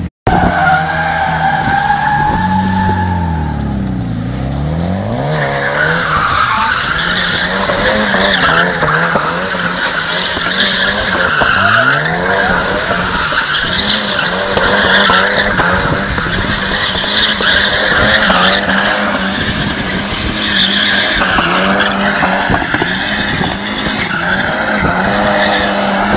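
A Tofaş sedan doing donuts. In the first few seconds the engine revs rise and fall, then the tyres squeal on and on while the engine is held at a steady high rev.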